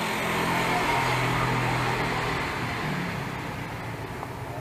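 A motor vehicle engine running, steady at first and then slowly fading away.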